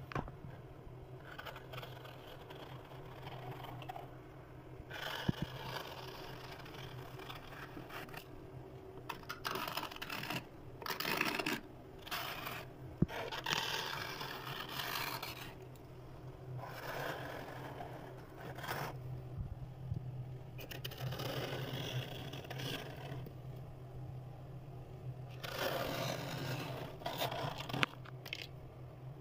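White plastic scraper scraping thick frost off the inside walls of a freezer: a run of irregular scraping strokes, some short, some lasting a second or two, over a steady low hum.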